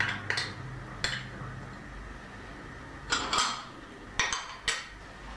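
A metal spoon clinking on a glass bowl while small glass and plastic spice containers are knocked and set down on a stone countertop: a series of short, sharp clinks, scattered at first, then several close together from about three seconds in.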